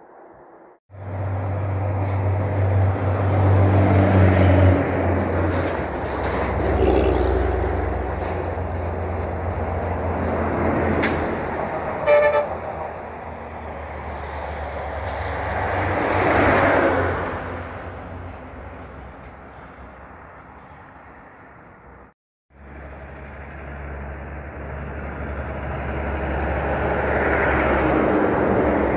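Heavy diesel trucks driving past one after another, their engines running loud and low, swelling and fading with each pass. A short horn toot sounds about twelve seconds in, and the sound cuts out briefly twice at edits.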